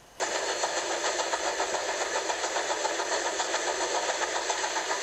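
A steam train running sound for a small blue toy steam engine: a fast, steady chuffing rhythm that starts abruptly just after the beginning. It sounds thin, with no low end.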